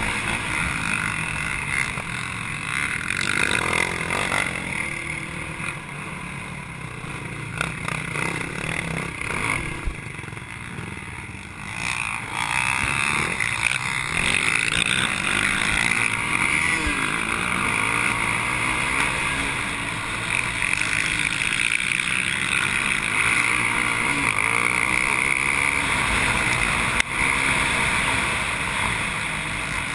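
Racing quad (ATV) engine running hard, heard from on the machine, its pitch rising and falling as the rider works the throttle. It eases off for a couple of seconds about ten seconds in, then revs back up and holds.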